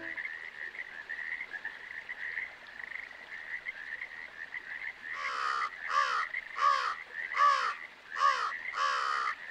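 A steady high chirping in the background, then from about halfway a crow cawing: six loud, raspy caws, a bit more than one a second.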